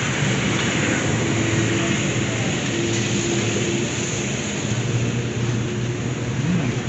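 Steady background noise of road traffic, with a faint held hum for a couple of seconds in the middle.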